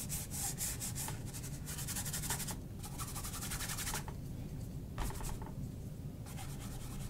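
Bristle brush scrubbing oil paint onto canvas in quick back-and-forth strokes: a dry, rasping hiss that comes in several bursts of about a second each, with short pauses between.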